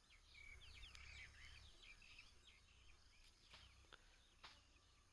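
Near silence, with faint birds chirping in the background and a few faint clicks.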